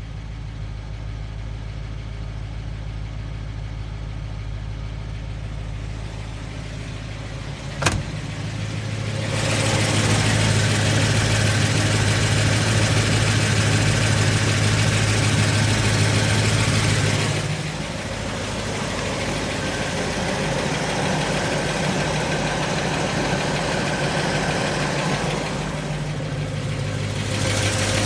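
Ford 5.8L 351 Windsor V8 idling steadily with lifter ticking. The ticking follows an upgrade to a Crane cam and lifters in which the original pushrods were kept. There is one sharp click about eight seconds in, and the engine sounds louder and fuller from about nine seconds on, easing off a little past halfway.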